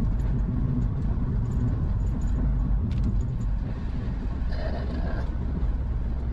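Car driving, heard from inside the cabin: a steady low rumble of engine and road noise, with a brief higher-pitched sound about four and a half seconds in.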